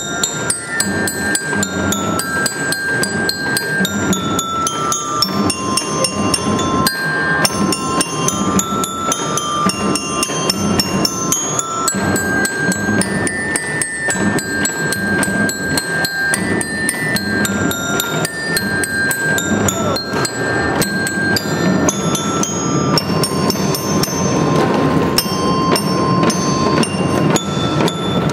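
Children's drum band playing: a melody of ringing, bell-like struck notes stepping up and down over dense, continuous drumming.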